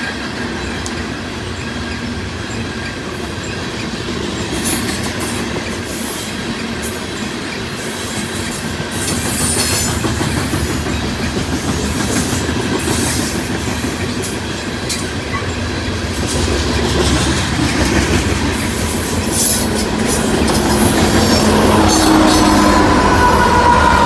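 Loaded coal hopper cars of a freight train rolling past close by, steel wheels on the rails with a few spells of high-pitched wheel squeal. In the last few seconds the rumble grows louder and steady engine tones come in as the rear BNSF diesel locomotives approach.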